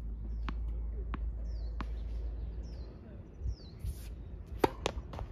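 A tennis ball bounced three times on a hard court, evenly spaced, then a sharp crack as the Head Speed Pro racket strikes the ball on a serve, the loudest sound, followed by two more short clicks. Short falling bird chirps come in between.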